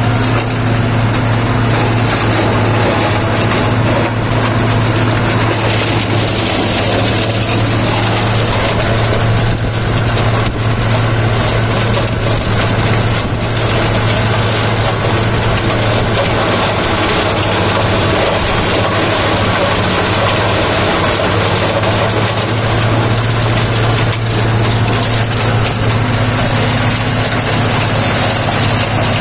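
Deutz-Fahr Agrolux 80 tractor's four-cylinder diesel engine running steadily under PTO load, heard from the driver's seat, as it drives a Maschio Terminator 180 flail shredder mulching crop residue in low first gear.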